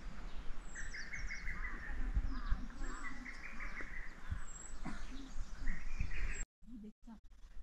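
Small birds chirping in quick repeated trills, with low thumps and rumble underneath. The sound drops out abruptly about six and a half seconds in.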